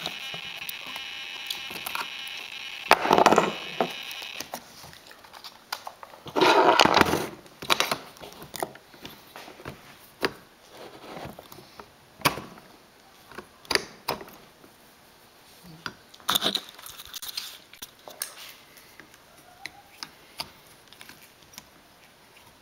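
Handling and tool noises as a glow plug is worked out of a Traxxas Revo 3.3 nitro engine by hand: scattered clicks and scrapes, with two louder rustling bursts in the first seven seconds. A steady whine runs under the first four seconds and then stops.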